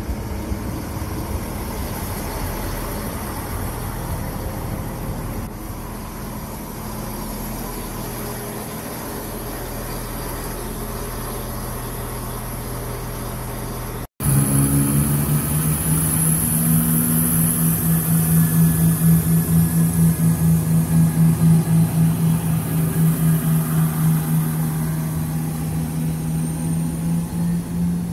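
Class 170 Turbostar diesel multiple unit's underfloor diesel engines. In the first half they idle with a steady low hum; after a cut about halfway through, a louder steady drone with a regular throbbing beat as the unit pulls away under power.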